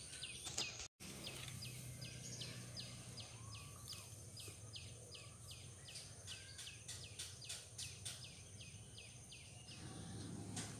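Outdoor wildlife ambience: a repeated short high chirp, about three a second, over a steady high insect drone.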